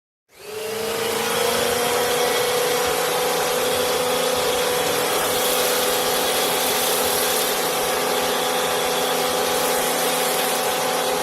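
Pressure washer starting up and running steadily, a loud hissing spray over the pump's steady hum, its pitch rising slightly as it comes up to speed in the first second.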